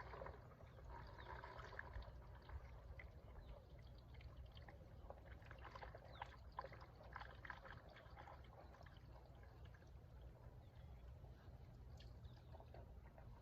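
Gasoline being siphoned out of a vehicle, trickling and pouring faintly, over a low steady hum.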